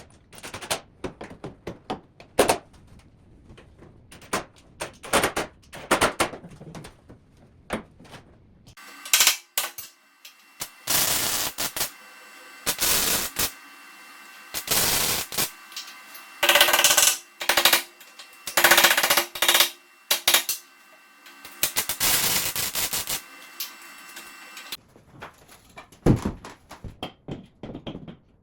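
Metalwork on a car's front strut tower: a series of sharp knocks on metal, then, after about nine seconds, longer rattling bursts with a metallic ringing, before single knocks return near the end.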